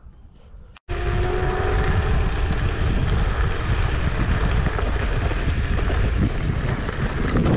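Kugoo G2 Pro electric scooter ridden fast off-road: wind buffeting the microphone and a rumble from the tyres and frame, with a faint steady motor whine. The noise starts abruptly about a second in, after a quiet moment.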